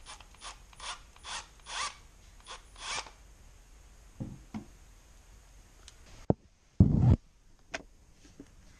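Tool-handling noises at a metal tool chest while a cordless drill is picked up: a run of about seven short scraping rustles over the first three seconds, then a few knocks, a sharp click and a loud thump about seven seconds in.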